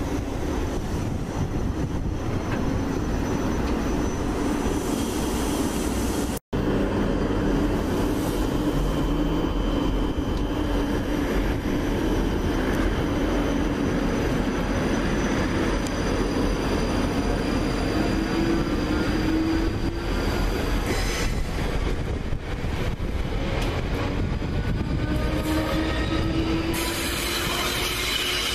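South Western Railway Siemens Desiro electric multiple unit running past on the rails, with wheel and rail noise. Its motor whine rises in pitch twice as it pulls away, the second time near the end. The sound drops out for an instant about six seconds in.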